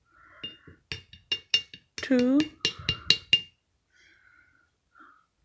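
A spoon tapping repeatedly against the rim of a glass mason jar, about ten sharp ringing clinks over some three seconds, knocking sticky honey off the spoon.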